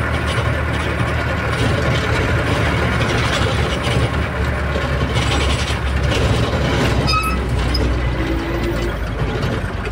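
An old vehicle driving, heard from inside its cabin: a steady low engine and road rumble with constant mechanical rattling of the body and load.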